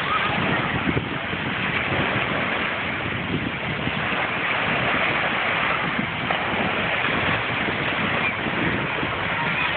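Small waves breaking and washing up on a sandy shore in a steady rush, with wind buffeting the phone's microphone.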